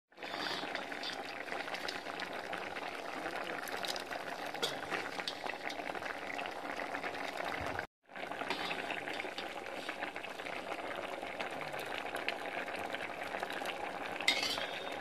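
Milk-based pasta payasam boiling in a steel pot: a steady bubbling crackle. It drops out briefly about halfway, then resumes, with a short louder sound near the end.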